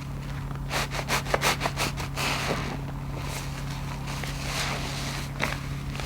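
Wet foam grout sponge squeezed in sudsy water: a quick run of about eight squeezes about a second in, then softer wet hissing of suds, and one more squeeze near the end.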